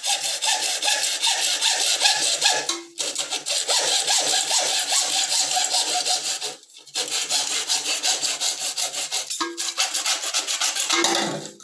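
Hand hacksaw cutting a 3/4-inch PVC pipe, rasping in quick back-and-forth strokes with short pauses about three, seven and nine seconds in.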